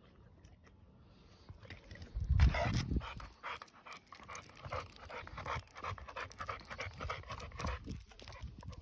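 American Bully dog panting in quick, uneven breaths from about three seconds in. Just before the panting starts there is a brief, louder low rumble.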